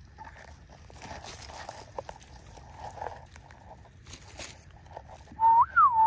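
Dry leaf litter crackling and rustling as a hand and knife cut a morel mushroom at its stem. Near the end comes a loud, clear whistle that slides up and down in pitch several times.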